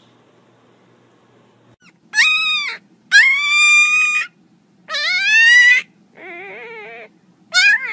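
Black-and-tan puppy giving a series of high-pitched cries, five in all, each about a second long, starting about two seconds in; the fourth is lower and quieter than the rest.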